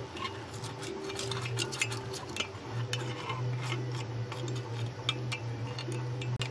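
A metal tool tapping and scraping against a freshly cast aluminium part and its sand mould: an irregular run of sharp metallic ticks, over a steady low hum.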